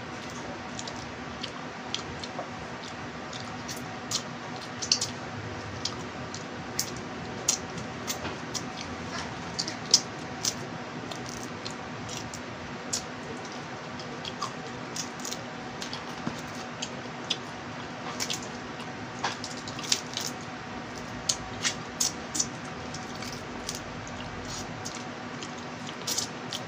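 Close-up eating sounds of a person picking apart and eating small crabs with rice by hand: wet chewing and lip smacks with irregular sharp clicks of crab shell, over a steady low hum.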